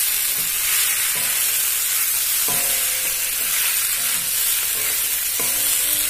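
Macaroni and scrambled egg sizzling in a metal kadhai while a spatula stirs it, scraping the pan about every second or so.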